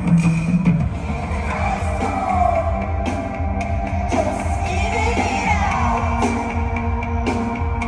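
Live concert music at full volume through a venue PA: a pulsing bass with dense rock-style backing and a singing voice gliding up and down over it.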